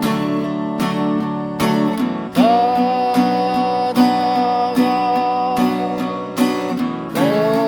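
Acoustic guitar strummed in a steady rhythm, with a long held melody note over it that scoops up into pitch about two seconds in and again near the end.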